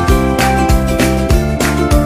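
Upbeat background music with a steady beat, about three beats a second.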